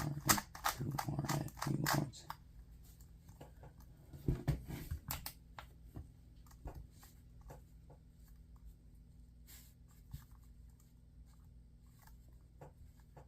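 A 2x2 speed cube being turned fast by hand, its plastic layers clicking in quick, irregular runs. The clicks are densest in the first couple of seconds and again around four to five seconds in, then come sparser and fainter.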